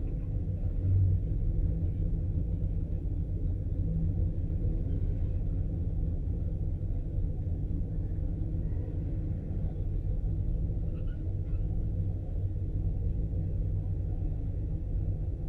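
Twin-turbocharged 2010 Chevrolet Camaro SS's 6.2-litre V8 idling steadily as a low rumble, heard inside the cabin, with a brief swell about a second in.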